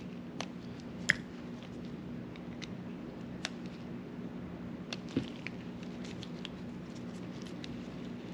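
Scattered light clicks and taps as small baitcasting-reel parts are handled during reassembly, over a steady low hum.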